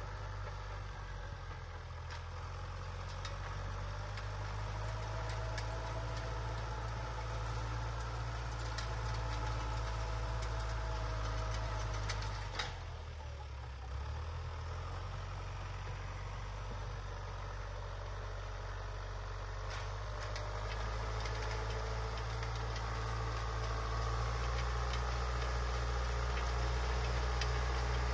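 John Deere 6400 tractor's four-cylinder diesel engine running steadily while it drives an Alpego rotary harrow through the soil, growing louder as the tractor comes closer. About halfway through there is a single sharp click, and the engine note briefly sags in pitch before picking up again.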